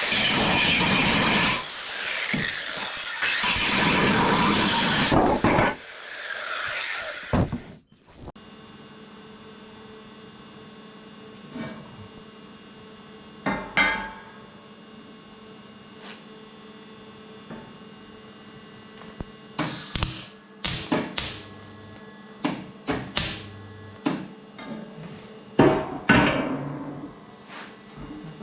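CO2 MIG welder arc crackling in two bursts over the first five seconds or so, then the welder's steady hum with scattered metal knocks and taps.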